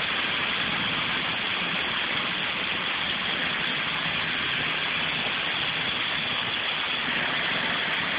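Hydrodemolition robot's high-pressure water jet blasting a steel ship hull to strip old paint and rust: a steady, loud hissing rush with a low hum beneath.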